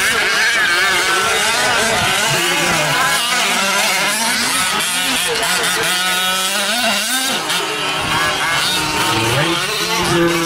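Two-stroke engines of several 1/5-scale gas RC trucks racing, overlapping, each rising and falling in pitch as the throttle is opened and closed through the turns and jumps.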